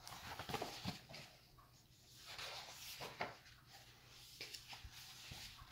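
Rustling and soft knocks of a picture book being handled, its pages moved and turned, in irregular scraping spells with a few sharp clicks.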